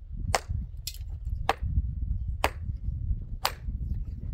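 A hammer striking stone as stones are set into a wall: about five sharp, slightly ringing knocks, roughly one a second, over a steady low rumble.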